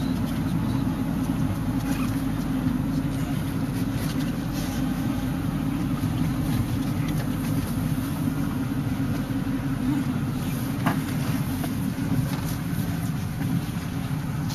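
A van driving along a winding paved mountain road, heard from inside the cabin: a steady drone of engine and tyre noise.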